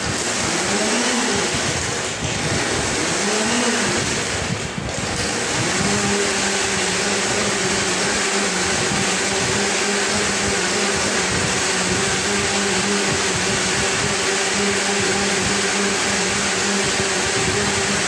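Madin T133 blender running on its blend mode, crushing ice and liquid into a yogurt smoothie. The motor pitch swings up and down a few times during the first five seconds, with two brief dips, then holds steady.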